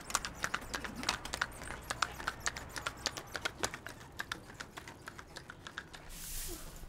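A donkey's hooves clip-clopping on a paved road as it pulls a loaded cart, a quick, uneven run of clicks that thins out after about four seconds. Near the end, a straw broom sweeps a concrete yard in a short hiss.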